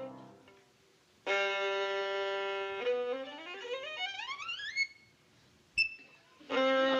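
Violin playing: a held note, then a fast run of notes climbing to a high note, and a single short, sharp high note. A fuller sustained chord comes in near the end.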